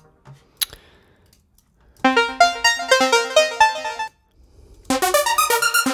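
Arpeggiated synth presets from Logic Pro's Alchemy synthesizer being auditioned one after another. After a single click, a fast stepping arpeggio plays for about two seconds and stops, and a different arpeggio pattern starts near the end.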